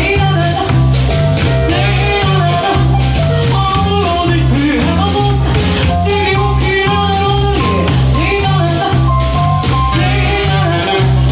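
A band playing an upbeat song, with a repeating bass line, drum kit and melody lines over them.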